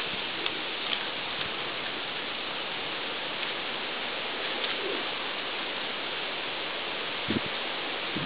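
Steady, even hiss with a few faint ticks scattered through it, and a brief slightly louder sound about seven seconds in.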